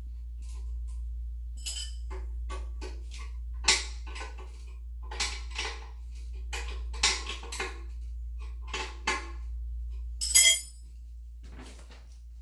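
Irregular metal clicks and clinks as the nuts on a toilet's closet bolts are snugged down at its base, just until secure rather than hard-tightened. A louder, briefly ringing metal clink comes a little after ten seconds in.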